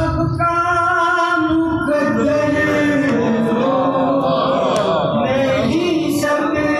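A man singing a manqbat, a devotional song, into a microphone, holding long notes with wavering ornamented runs.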